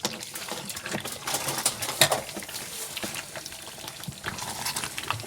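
Pieces of mackerel dropped into a pot of simmering tomato stew: irregular wet plops and splashes, the loudest about two seconds in.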